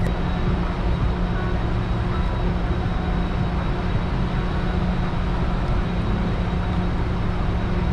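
Evinrude outboard motor idling, a steady low hum that holds an even level throughout.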